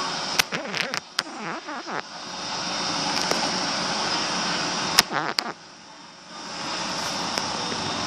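Roomba robot vacuum running with a steady whirring hiss, with a few sharp clicks about half a second to two seconds in and again about five seconds in; the running sound drops out briefly twice.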